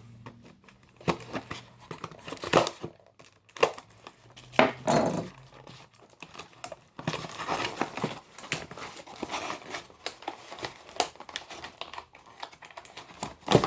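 Packaging crinkling and tearing in bursts of sharp crackles as a toy is unwrapped by hand, busiest in the middle of the stretch.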